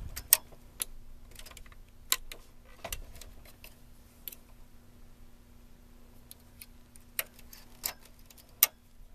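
Scattered sharp metallic clicks of hand transfer tools against the latch needles of a bulky knitting machine as stitches are lifted and hung onto the needle bed, with a faint steady hum underneath.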